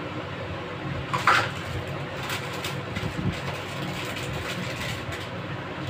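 Plastic packaging rustling and crinkling as it is handled, in quick irregular crackles, loudest about a second in, over a steady low hum.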